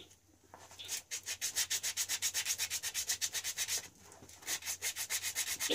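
Rapid back-and-forth scrubbing of a small engine part by hand to clean it up, about nine strokes a second. The scrubbing starts about a second in, stops briefly near four seconds, then carries on.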